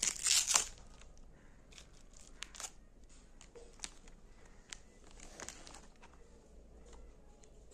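A packet crinkling sharply for about half a second at the start, then scattered small clicks and crunches as a jam-centred cream biscuit is handled and bitten.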